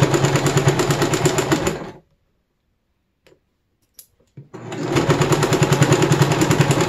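Domestic electric sewing machine stitching forward in two runs, a fast steady rhythm of stitches. It stops about two seconds in, a few light clicks come in the pause, and it starts again midway and runs on.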